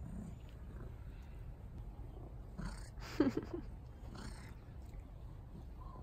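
A long-haired cat gives one short meow about three seconds in, with soft rustling just before and after it.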